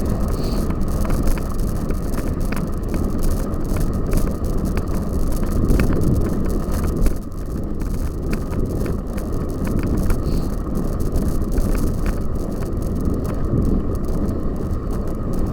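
Cyclocross bike ridden over rough ground: a continuous low tyre rumble with wind on the microphone, broken by frequent sharp clicks and rattles from the bike.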